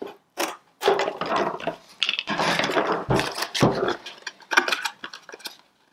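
A paperboard drink carton handled and folded on a wooden tabletop: a run of crinkling and scraping sounds, with two soft knocks about three seconds in as it is set against the table.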